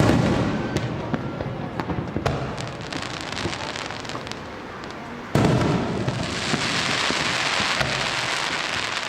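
Aerial firework shells bursting: a loud boom at the start and another about five seconds later. Each boom is followed by a spray of crackling, and after the second comes a dense sizzling crackle.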